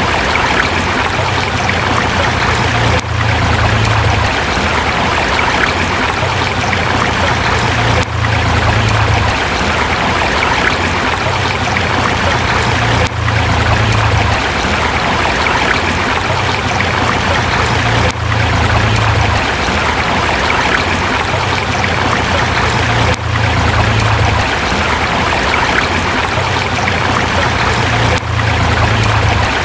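Forest river running over rocks: a steady rush of flowing water, with a brief dip in level about every five seconds.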